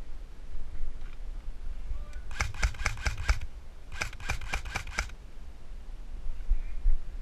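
Airsoft electric M4 rifle firing two quick strings of shots, about six in each, roughly half a second apart.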